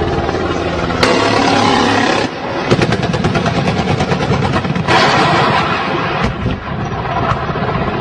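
Heavy gunfire over a steady loud rumbling noise, with sharp blasts about a second in and about five seconds in and a run of rapid shots between them.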